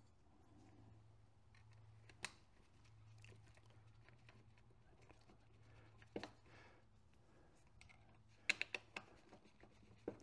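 Near silence over a faint low hum, broken by a few light clicks of small bolts being picked up and handled on a workbench, with a quick run of them near the end.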